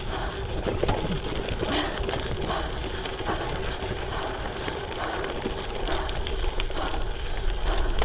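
Wind buffeting an action camera's microphone while riding a gravel bike, with steady tyre rumble; the low wind rumble grows stronger near the end.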